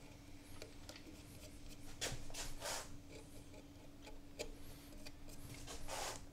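Small palm carving tool cutting short strokes into a bowl's scorched wooden surface: faint scratchy cuts, three close together about two seconds in and another near the end, with small ticks between. A steady low hum runs underneath.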